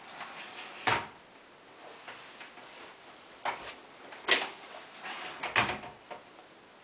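Glass shower door being handled, giving four sharp knocks and clunks spread over a few seconds.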